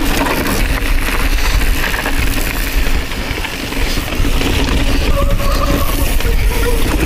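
Mountain bike descending a rocky trail at speed: wind rushing over the action camera's microphone, with the bike's chain and frame clattering over rocks. The noise eases briefly about halfway through.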